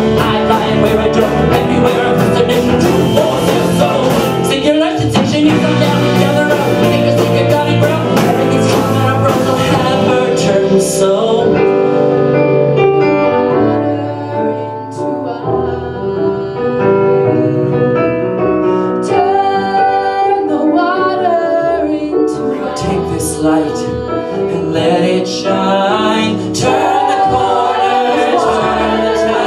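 Live rock band and singers performing a song from a rock musical. For the first ten seconds the full band plays with drums and cymbals. The drums then drop out, leaving sustained singing over keyboard with a few scattered hits, and several voices sing together toward the end.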